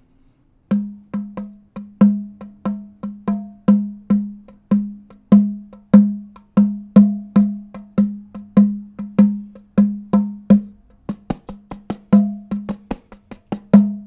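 Small hand drum struck by hand in a steady rhythm, starting about a second in, each stroke a sharp slap with a ringing low tone, about two to three strokes a second and closer together for a couple of seconds near the end. Picked up close on an AKG Perception 200 condenser microphone with no bass cut and no pad.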